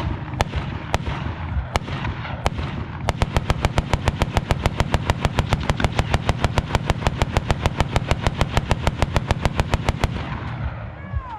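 .50-caliber machine gun firing from a Jeep mount: four single shots about a second apart, then a long steady burst of about eight rounds a second lasting some seven seconds. A steady low rumble runs underneath.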